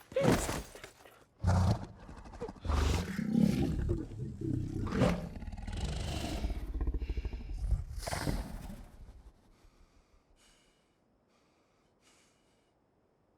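A werewolf roaring and snarling in several loud, rough outbursts, which die away after about nine seconds.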